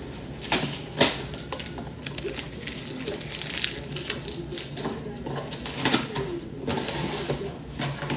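A package being torn open and its wrapping handled: an irregular run of crackles, rips and sharp clicks.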